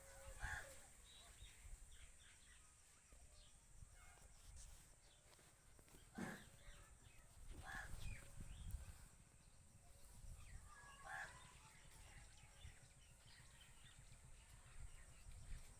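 Near silence with a few faint, short bird calls, one about half a second in, two around six and eight seconds, and another around eleven seconds.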